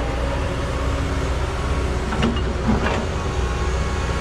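Crawler dozer running steadily, its diesel engine droning under load with clattering tracks, while it grades dirt. There are a few short knocks a little over two seconds in.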